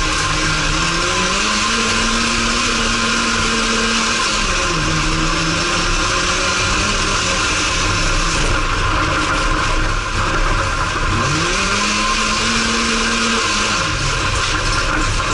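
Race car engine heard from inside the cabin under hard driving: the revs climb about a second in and hold high, ease off around four seconds, then climb again around eleven seconds and drop near the end. A loud steady din of tyres and the loose dirt surface runs underneath.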